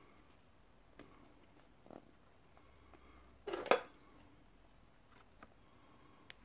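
Quiet handling of a plastic ready-meal tray and a metal spoon: a few faint clicks, and about halfway through one short clatter with a sharp click.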